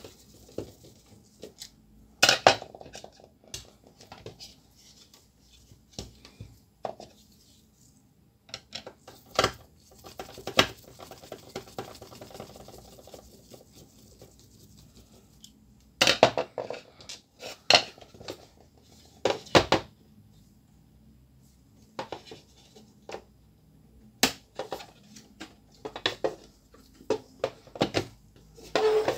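Plastic parts of a laser-printer imaging drum unit clicking and knocking as it is unscrewed and pulled apart by hand: scattered sharp taps and clacks at irregular intervals, with short clusters of louder knocks as parts are separated and set down on the table.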